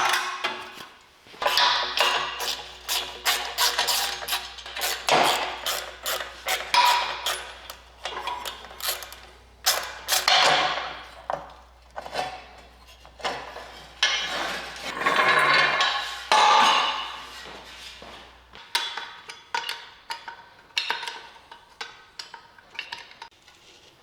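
Hand tools working on old truck bolts: a run of metallic clicks, clanks and knocks, with a few ringing hits, as fasteners are worked loose.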